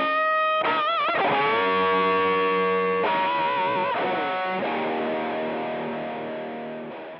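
Overdriven electric guitar through a Rangemaster-style treble booster pedal, playing sustained lead notes with wide vibrato bends, then a held chord that slowly fades and cuts off at the end.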